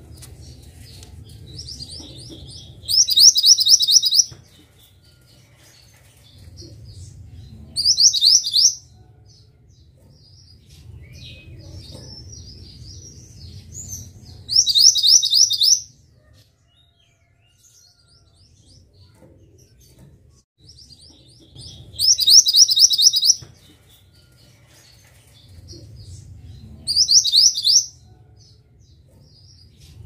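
Mantenan (minivet) singing: five loud bursts of fast, high repeated notes, each about a second long, with softer scattered chirps in between.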